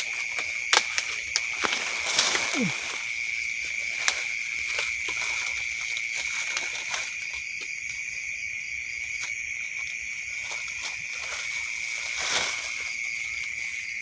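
Night insects chirring in a steady, unbroken high drone, with scattered sharp clicks and short rustles of twigs and leaves in the first few seconds and a brief rustle about twelve seconds in.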